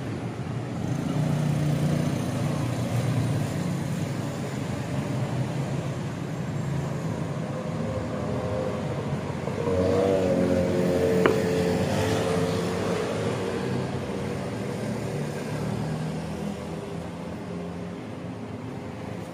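City street traffic: car engines running and passing close by, with one vehicle revving as it pulls away about ten seconds in.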